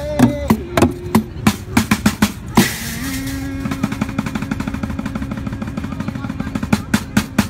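Homemade drum kit of plastic paint buckets and a metal cymbal played by hand with sticks. Single sharp beats lead to a crash about two and a half seconds in. A fast, even drum roll follows for about four seconds, breaking back into single beats near the end.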